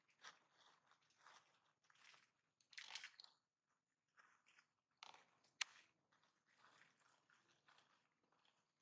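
Faint, irregular crunching and rustling, with one sharp click about five and a half seconds in.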